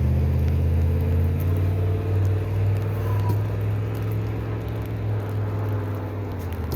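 A motor vehicle's engine running steadily, a low even hum that eases off near the end.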